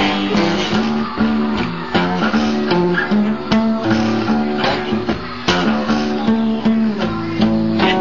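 Instrumental passage of a blues song, with guitar playing and no vocals.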